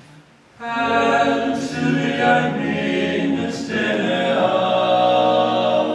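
Male barbershop quartet singing a cappella in Danish, in close four-part harmony. The voices come in together about half a second in and hold full sustained chords.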